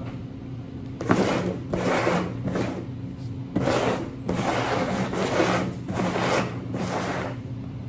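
Upturned plastic bowls being slid and shuffled across a wooden tabletop: a series of scraping strokes.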